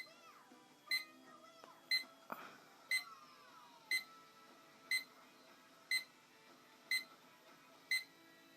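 Bedside alarm clock going off, a short high-pitched beep about once a second.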